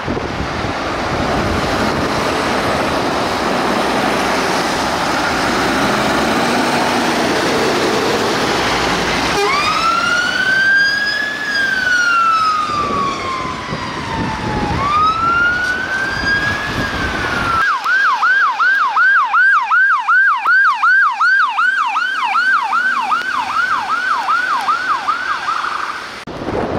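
UK emergency vehicle siren, after a stretch of steady rushing wind and road noise: it sounds two slow rise-and-fall wails, then switches to a fast yelp of about three sweeps a second.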